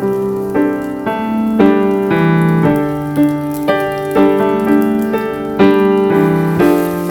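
Background piano music: a slow, gentle melody over sustained chords, each note struck and left to decay.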